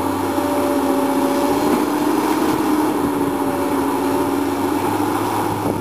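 Komatsu PC220 hydraulic excavator working, its diesel engine running steadily with a steady whine as the boom and arm reach out with the bucket.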